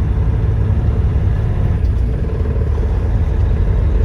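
Steady low rumble of a semi truck's diesel engine and road noise, heard from inside the cab while driving.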